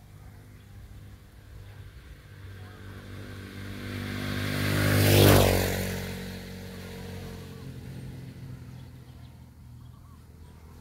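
A motor vehicle driving past: its engine and tyre noise grow louder, peak about five seconds in, then fade away.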